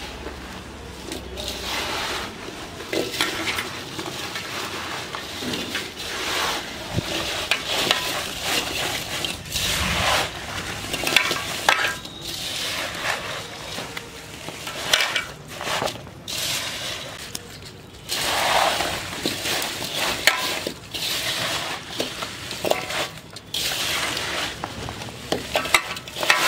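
Bare hands tossing and mixing cut raw mango pieces coated in pickle spices in a large metal bowl: irregular rustling and scraping of the pieces against each other and the bowl, with a few sharp knocks.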